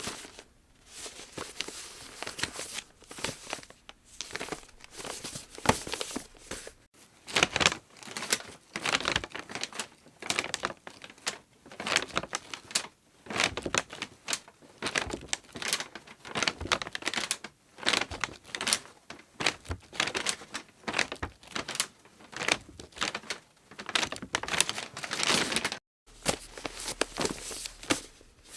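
Square origami paper being handled and folded by hand: irregular crinkling and rustling, with sharper swipes as creases are pressed in. There are two brief breaks, about seven seconds in and near the end.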